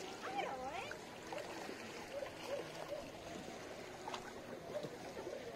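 Steady sound of moving water, with faint short chirps and a few soft clicks scattered through it.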